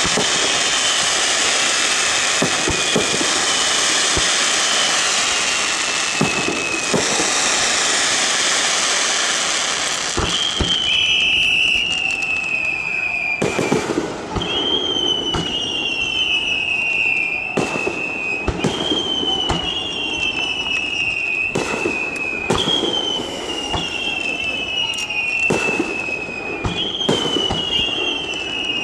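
Aerial fireworks shells bursting: dense crackling with many small bangs at first. From about ten seconds in come sharp bangs every one and a half to two seconds, each joined by a high whistling tone that falls in pitch.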